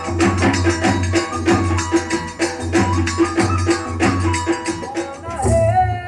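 Indian folk dance music with a quick, even beat of shaker- and wood-block-like percussion over a low pulse and a melody. About five seconds in, it changes to long held notes.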